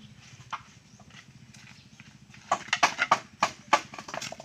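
A tool knocking on dry bamboo: one knock about half a second in, then a quick run of about nine sharp knocks from about halfway through, as openings are cut into a bamboo tube for a chicken feeder.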